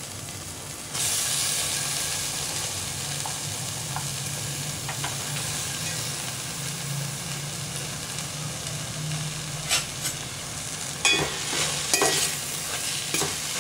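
Chopped manathakkali (black nightshade) leaves hit the hot onion-tomato masala in a steel pot and sizzle, starting suddenly about a second in and slowly easing off. Near the end a utensil scrapes and clicks against the steel pot a few times as the greens are stirred in.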